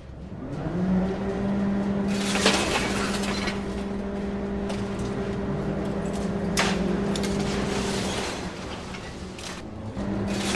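A steady low engine-like hum, as of an excavator driving up, holding one pitch, with two sharp cracks partway through; it dies down for about two seconds and comes back near the end.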